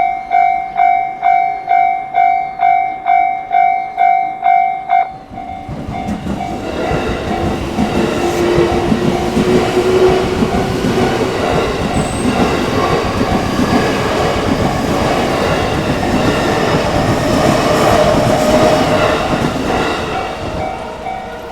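Japanese level-crossing warning bell ringing in a steady, rapid ding-ding, about two and a half strikes a second. About five seconds in, a JR Ome Line electric train runs through the crossing, and its loud rumble of wheels on rail drowns the bell until the bell comes through again near the end.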